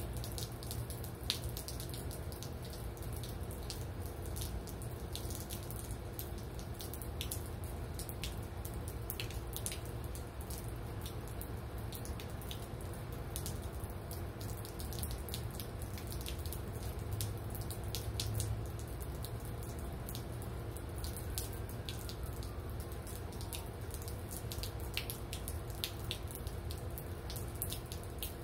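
Rain falling steadily, with drops dripping and splattering close by as irregular sharp ticks over a constant hiss of water.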